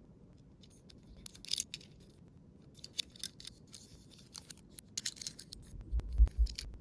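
Toy cars being handled: short, faint scraping rattles at about one and a half, three and five seconds in, then a run of low knocks and sharp clicks near the end.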